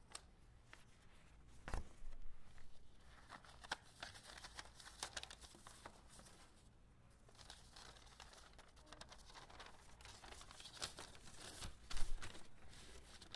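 Rustling and handling noises close to the microphone, with a knock about two seconds in and a louder one near the end.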